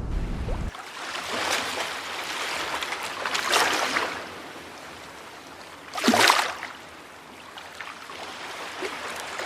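Ocean waves washing in: a low rumble cuts off under a second in, then a wash swells to a peak about three and a half seconds in, and a short, louder splash follows about six seconds in before quieter washing.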